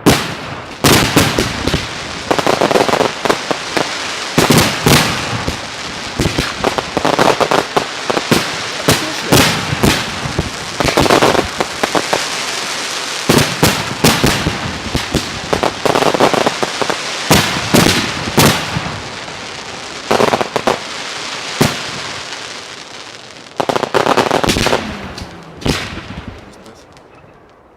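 Professional fireworks display heard close to the firing site: a dense barrage of sharp bangs with crackling in between. It thins out and fades near the end.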